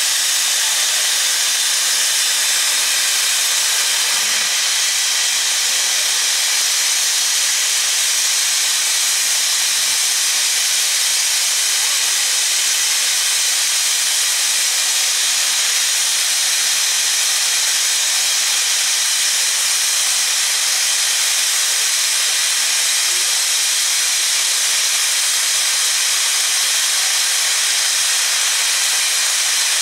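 Black 5 steam locomotive standing with steam escaping: a loud, steady hiss with no exhaust beats.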